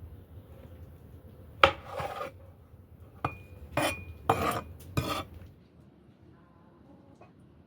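Metal kitchenware clattering: dishes, pots and utensils being handled, with about six clinks and scrapes, two of them ringing briefly, then it goes quiet for the last couple of seconds.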